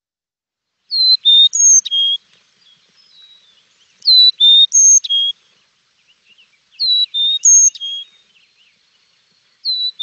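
Recorded Carolina chickadee song: a clear whistled four-note phrase going high, low, high, low, repeated about every three seconds, three times, with a fourth phrase beginning near the end.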